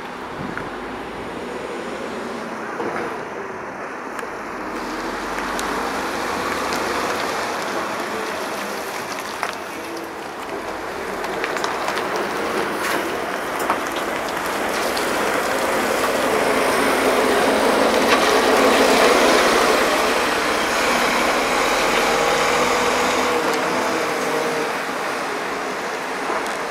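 Setra coach's diesel engine and tyres as it pulls slowly past, swelling to its loudest a little after halfway and easing off near the end, with a few light clicks along the way.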